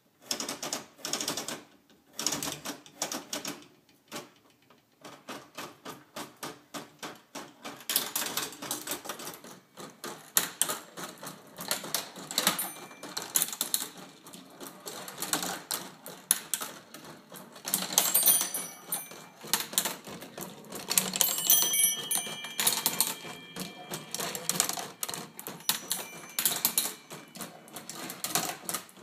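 Weight-driven wooden marble machine running: a dense, uneven clatter of ticks and clacks from its wooden gearing and Graham escapement, with steel marbles rolling and knocking along the tracks. It starts suddenly, and brief metallic ringing tones sound now and then.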